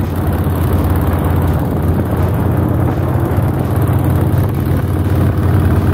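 Motorcycle engine running at a steady cruising speed on the move, with wind and road noise; the pitch holds level with no revving.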